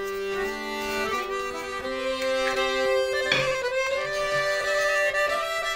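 Instrumental background music with long held melodic notes that change every second or so.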